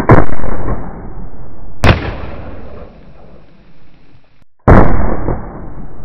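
A .44-calibre black-powder Remington revolving carbine firing: three loud shots, at the start, just under two seconds in and near five seconds in, each followed by a long rolling echo; the second is sharper and brighter than the other two.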